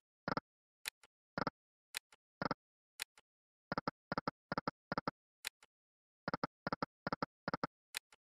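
Online slot machine game sound effects: quick runs of short electronic beeps, several a second, as the reels stop, each run led by a sharp high click, with brief silences between spins.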